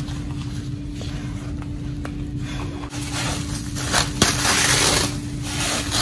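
Plastic cling wrap crinkling and rustling as it is pulled and unwound from around the stomach. It is loudest and busiest in the second half.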